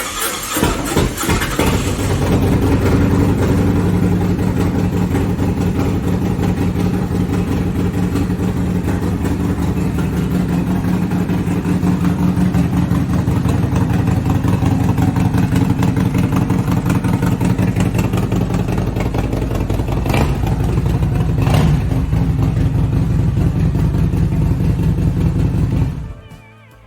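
Cold start of a 2017 Harley-Davidson Road Glide Special's Milwaukee-Eight 107 V-twin, which has a Stage 2 cam and a 2-into-1 exhaust. It fires at once and then idles steadily and loudly, with a couple of short sharper sounds about twenty seconds in, and it cuts off near the end.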